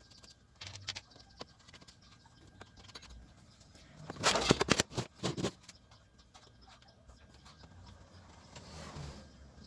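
Handling noise of hands working on a speaker cabinet: scattered light clicks and knocks, with a quick cluster of sharp clicks between about four and five and a half seconds in.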